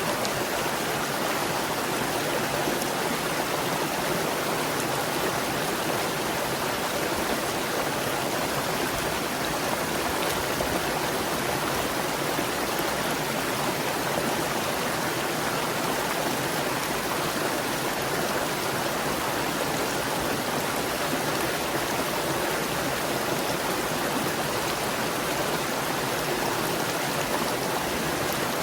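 Clear stream gurgling and rushing over rocks, a steady, even water sound.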